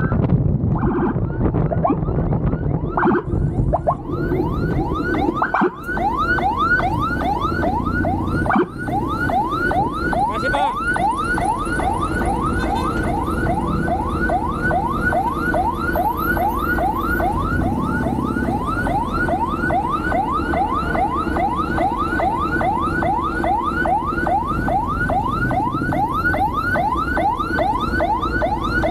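Police motorcycle escort siren in fast yelp mode: a rapid, even run of rising wails, about three a second, over a low rumble of the moving bike.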